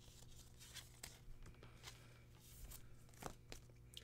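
Near silence: faint rustles and a few light clicks of trading cards being handled and slid on a table, over a steady low hum.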